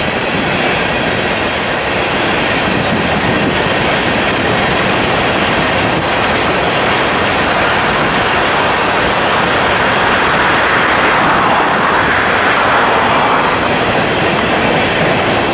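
Empty coal hopper cars rolling past, steel wheels rumbling and clattering on the rails. The hiss of the wheels grows brighter about two-thirds of the way through.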